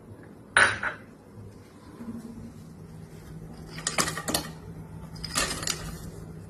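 Kitchen utensils clattering against pots and dishes while cooking: one sharp clatter about half a second in, then two short bouts of clinking, near four seconds and near five and a half seconds.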